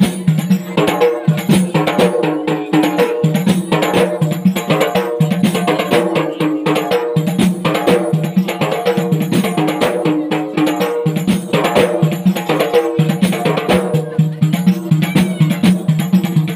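A group of Acehnese rapa'i, large hand-beaten frame drums, playing together in a fast, dense rhythm.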